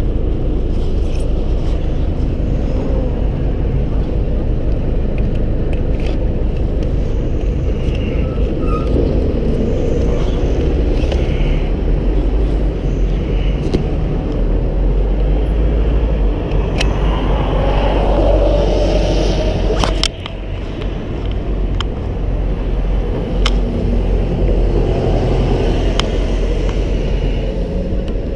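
Steady low rumble of city street traffic, with a few sharp clicks and knocks as a bicycle is handled. The rumble drops suddenly about twenty seconds in.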